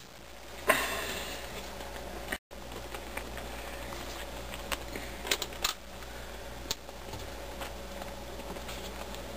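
Scattered light clicks of plastic board-game chips being placed and handled on the game board, the sharpest about a second in, over a steady low hum.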